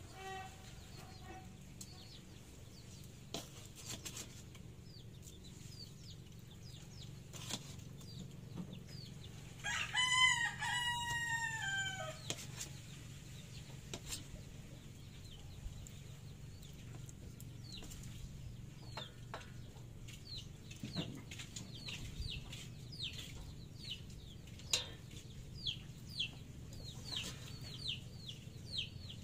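A rooster crows once, about ten seconds in, a falling call lasting about two seconds. Short high chirps from other birds come and go throughout.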